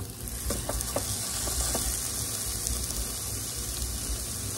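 Raw ground-meat burger patty and sliced onions sizzling steadily in hot oil on an electric skillet; the patty has just been laid down.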